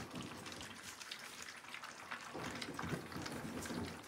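A litter of three-week-old puppies lapping and smacking at soft mush, their first solid food: a busy, irregular patter of small wet clicks and slurps.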